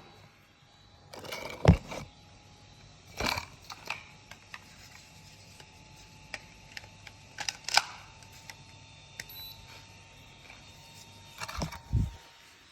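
Scattered sharp clicks and clattering knocks, the loudest about a second and a half in, again around three and eight seconds, and near the end, over a faint steady background hum.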